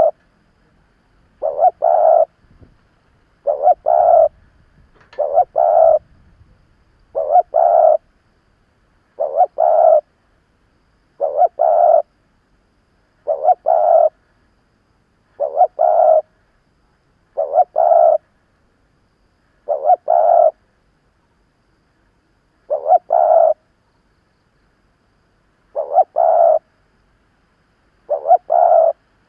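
Spotted dove cooing over and over, one short two-part coo about every two seconds, the gaps growing a little longer near the end. It is the calling of a seasoned decoy male, used to provoke wild doves into answering.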